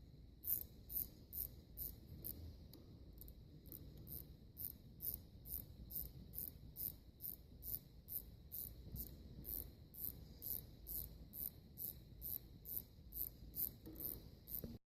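Faint, evenly paced high-pitched clicking, a little over two clicks a second, over a low rumble.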